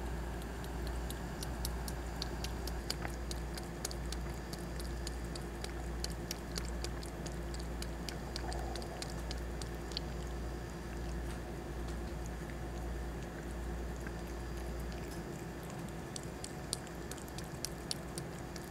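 Cat eating wet food from a bowl: quick wet licking and chewing clicks, several a second, that thin out for a few seconds in the second half and pick up again near the end. Under it runs the steady hum of a fan and air conditioner.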